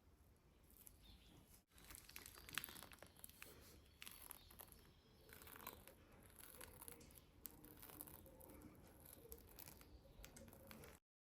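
Faint handling sounds of food preparation: scattered light clicks and crinkling, cutting off suddenly near the end.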